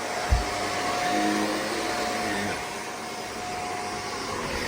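Shark vacuum cleaner running steadily with a steady whine over its motor's rush of air, with a short low knock about a third of a second in.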